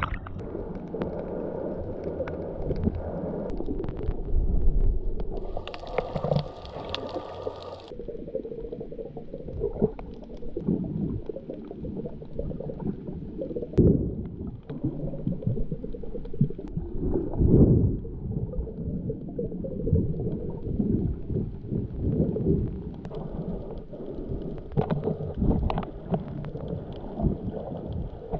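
Muffled water sloshing and gurgling, heard through a camera held underwater while snorkelling, with a brighter stretch of splashing about six seconds in.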